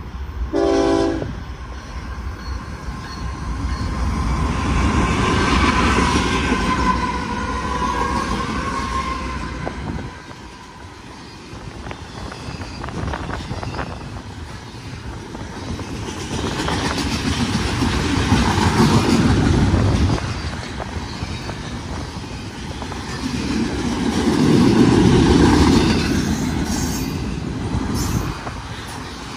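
Loaded BNSF double-stack freight train passing close by at speed. The horn sounds over roughly the first ten seconds as the lead locomotives go by. Then the well cars roll past with a steady low rumble and clatter of wheels on rail, swelling and easing in waves.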